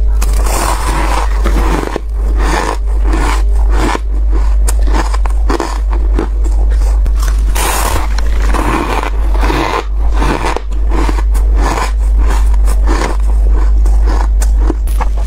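Close-miked biting and chewing of freezer frost: dense, rapid crunching and scraping of packed frost crystals between the teeth, with a steady low hum underneath.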